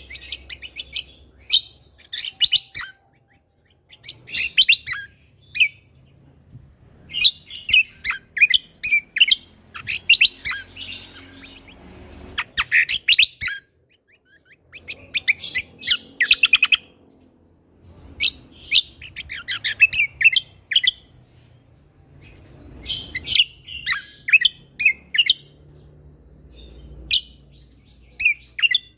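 A cucak kombo (kecial kombok) songbird singing vigorously: bursts of rapid, sharp chirping notes in phrases of one to two seconds, broken by short pauses.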